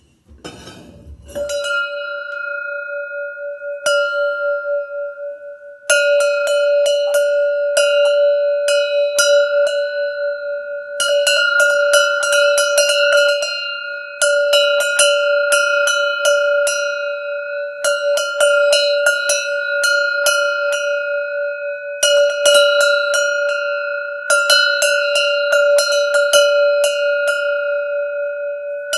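A single metal livestock bell shaken by hand, its clapper striking rapidly in bursts of a few seconds with short pauses between, the bell ringing on one steady clear pitch.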